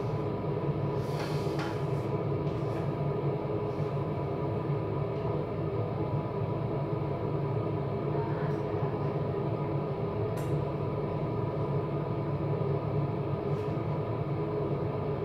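Steady machine hum with several held tones, as from a running motor or fan, with a few faint clicks and taps over it.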